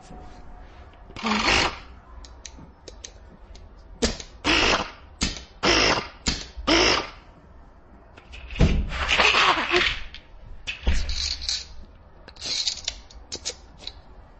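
Homemade air rifle firing a string of shots, each a short hiss of released air from its solenoid valve, about eight in all, with light mechanical clicks between them.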